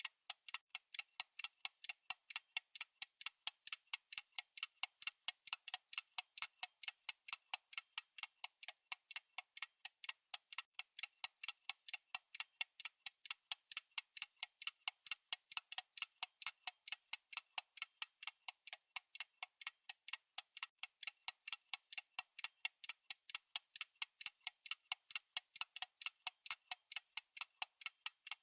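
Clock ticking sound effect: rapid, even ticks, several a second, sharp and thin with no low end.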